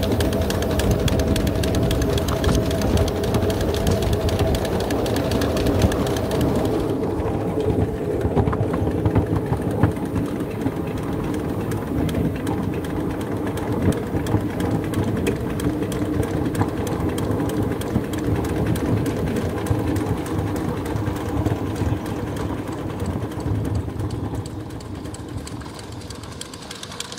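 Small ride-on live-steam locomotive running along the track: a rapid, steady clatter of exhaust beats and wheels over the rails, with a high steam hiss that drops away about seven seconds in.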